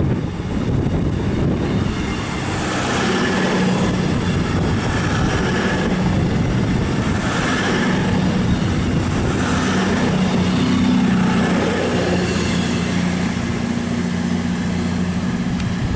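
CrossCountry Class 221 Super Voyager diesel multiple unit passing through the station, its underfloor diesel engines running with a steady low hum over wheel and rail noise that swells and eases a few times.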